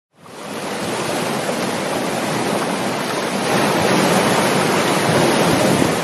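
Ocean surf: waves breaking in a steady rushing wash that fades in at the start and swells a little louder about halfway through.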